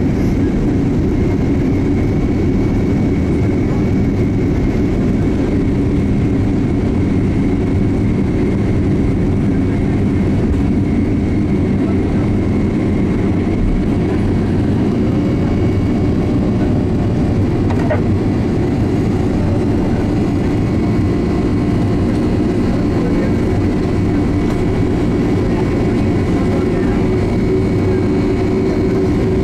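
Boeing 767-300ER twin turbofan engines at take-off power, heard inside the cabin: a loud, steady rush and rumble with a thin high whine, as the airliner accelerates down the runway and lifts off into the climb.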